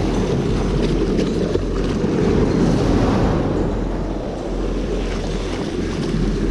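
Shallow surf foaming and washing around the legs, with steady wind noise on the microphone.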